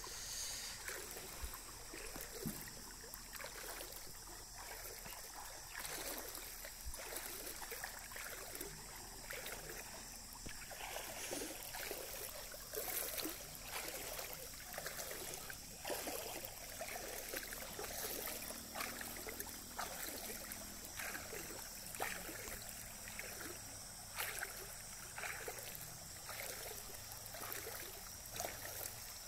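Water splashing and sloshing in irregular bursts about once a second, like people wading through shallow water, over a steady high-pitched hum.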